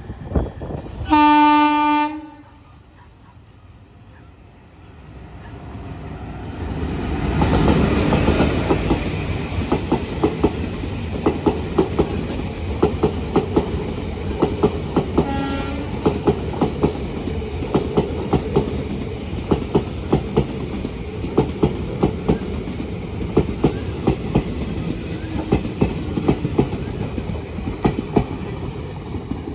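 Train horn sounds one loud blast about a second in. A train then approaches and runs past, its wheels keeping up a fast clickety-clack over the rail joints, with a second, fainter horn note midway.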